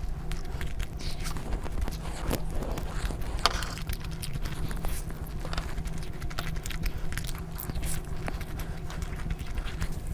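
A person chewing and biting food close to the microphone: irregular wet smacking clicks and mouth noises over a steady low hum.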